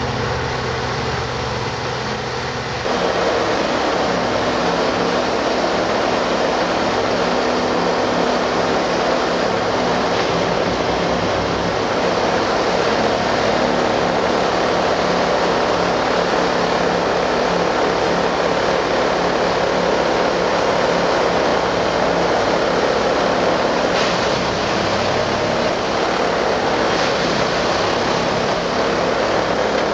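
Plasser & Theurer 08-32 Unimat 4S switch-tamping machine running as it tamps a railway turnout: a loud, steady diesel-and-hydraulic machine noise, which steps up about three seconds in and then holds steady.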